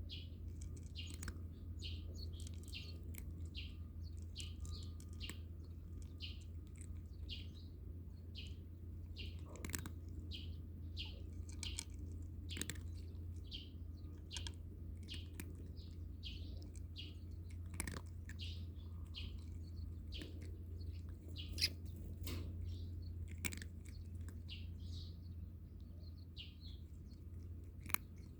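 Small birds chirping over and over, about two to three short calls a second, with a few sharp clicks among them.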